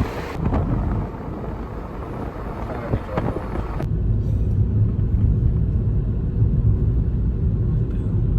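Steady low road rumble of a car driving, heard from inside the cabin, starting after a cut about four seconds in. Before that, broad outdoor noise with faint voices.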